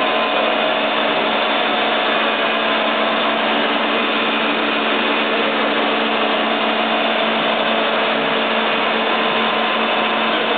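Puma 700 CNC lathe powered up and running, a steady mechanical hum with a whine of several steady tones.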